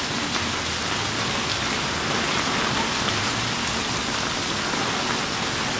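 Steady rain falling in a storm, an even hiss of drops with no let-up.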